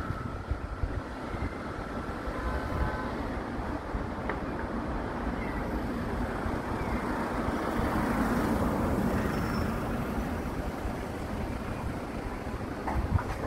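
Road traffic noise: a steady rumble that swells a little past the middle.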